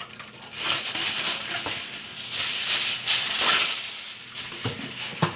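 Aluminium foil crinkling as it is handled, a rough crackly rustle that comes in surges.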